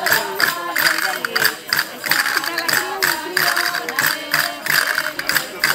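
Women singing a traditional folk dance song in chorus over rhythmic hand percussion, sharp jingling strikes at about three to four a second.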